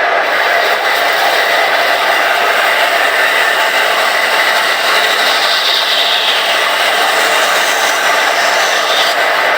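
Electric woodworking power tool running steadily with a loud motor whir. A harsher high hiss rides over the whir and cuts off suddenly near the end.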